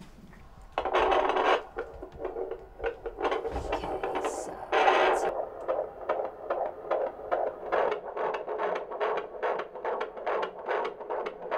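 Handheld fetal Doppler picking up an unborn baby's heartbeat: a few loud scraping swishes as the probe is placed and moved over the belly, then from about halfway through a rapid, regular whooshing pulse of about two and a half beats a second. The midwife finds the heartbeat normal.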